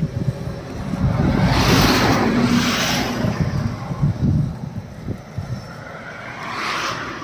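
Car on the road: steady low rumble of engine and tyres, with a louder rushing swell about two seconds in and another near the end.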